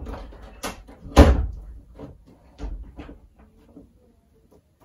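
A run of knocks and bumps in a small room, the loudest about a second in, with lighter knocks trailing off over the next few seconds.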